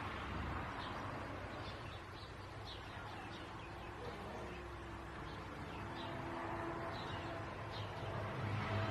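Birds chirping faintly in short, scattered calls over steady low background noise.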